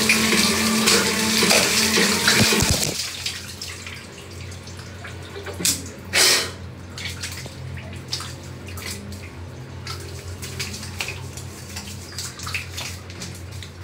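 Shower water spraying into a tiled shower stall; the spray stops abruptly about three seconds in. Water then drips and ticks, with two brief louder sounds a few seconds later.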